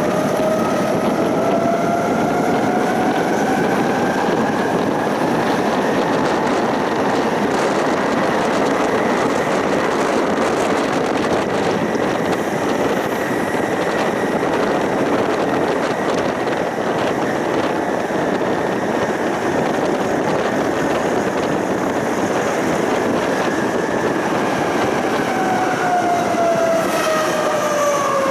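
Tram running on its rails with a steady rumble of wheels on track. Its electric traction motors whine rising in pitch over the first few seconds as it picks up speed, and falling in pitch near the end as it slows for a stop.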